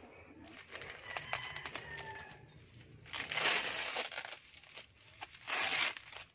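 Packing tape and wrapping being peeled and torn off a bubble-wrapped parcel, with plastic crinkling: small crackles first, then two loud ripping rushes, about three seconds in and near the end.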